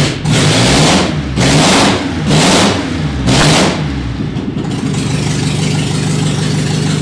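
Trike's engine revved in quick throttle blips, about five surges a little under a second apart, then settling to a steady idle for the last couple of seconds.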